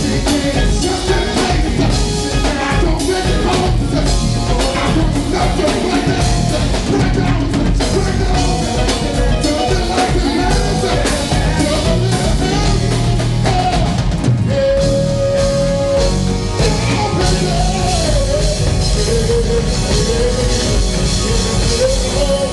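Live band music with drum kit and singing, loud and steady throughout.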